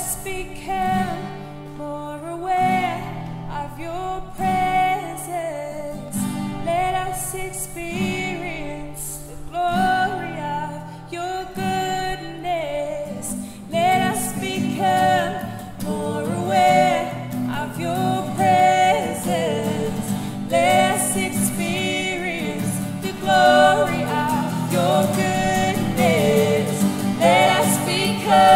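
A worship song sung by a small group of women's and men's voices over a strummed acoustic guitar. The sound fills out about halfway through.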